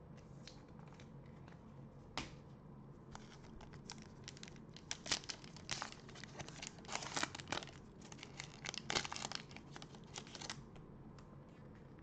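A Panini Prizm trading-card pack wrapper being torn open and crinkled by gloved hands: one sharp click about two seconds in, then a run of crackles for about seven seconds.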